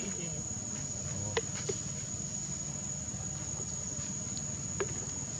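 Steady high-pitched insect drone, like crickets or cicadas, that never breaks. Three brief sharp clicks stand out, two close together a little over a second in and one near the end.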